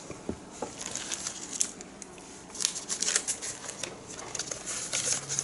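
Light, irregular scratching and rustling from hands working a paintbrush and handling painting materials, in short strokes that grow busier about two and a half seconds in.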